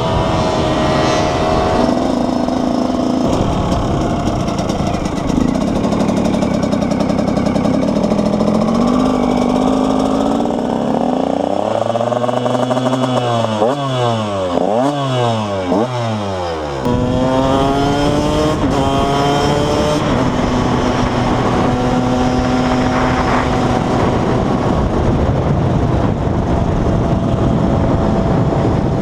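KTM 125 EXC single-cylinder two-stroke engine running under way at a steady throttle. Around the middle it revs up and down sharply several times in quick succession, then settles back to a steady cruising note.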